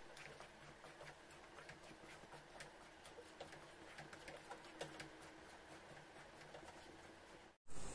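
Wooden spatula stirring and folding thick chana dal halwa in a non-stick frying pan: faint, irregular soft clicks and pats.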